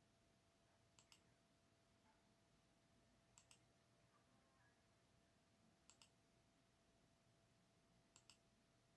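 Computer mouse clicked four times, about every two to two and a half seconds, each click a quick double tick of button press and release, placing vertices of a polygon being drawn. Otherwise near silence with a faint steady hum.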